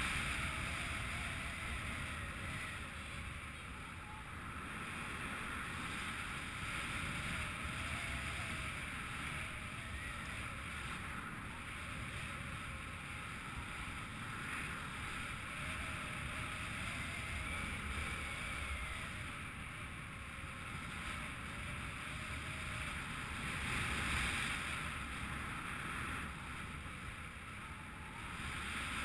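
Steady rush of wind over the microphone of a paraglider's helmet or harness camera in flight, swelling and easing a little.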